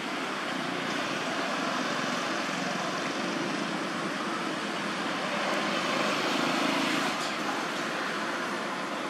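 Steady outdoor background noise: a constant rush with no distinct events, swelling slightly about six to seven seconds in.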